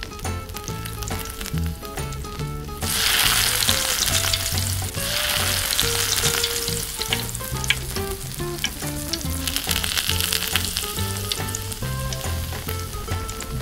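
Miniature doughnut rings frying in hot cooking oil in a tiny steel pot. A loud hiss starts suddenly about three seconds in, then settles into a steady sizzle with small crackles.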